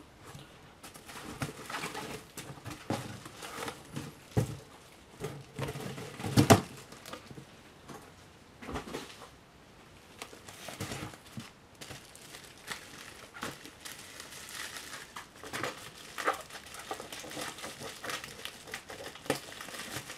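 A cardboard shipping box and bubble-wrapped model boxes being handled and unpacked by hand: irregular rustles and light knocks, with one sharp knock about six and a half seconds in.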